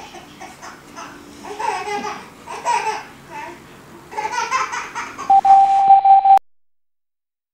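A baby laughing and babbling. Near the end comes a steady tone lasting about a second, and then the sound cuts off suddenly.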